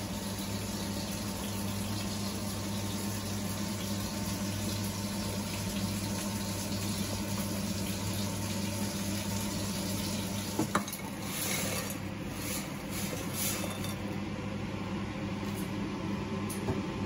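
Salter hot air fryer running: a steady fan hum with a rush of hot air. About eleven seconds in there is a click, then a couple of seconds of light clattering and scraping.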